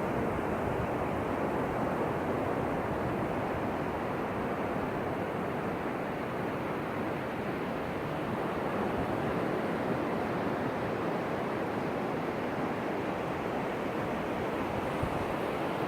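Ocean surf washing onto a beach: a steady rush of breaking waves that swells and eases slightly.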